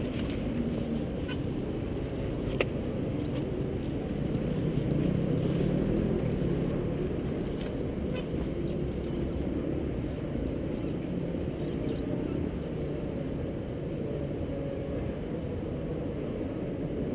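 Dirt bike engines running, heard muffled from a helmet camera, with the sound mostly a low, steady rumble. It swells for a few seconds about four seconds in, and there is a single sharp click a little before three seconds.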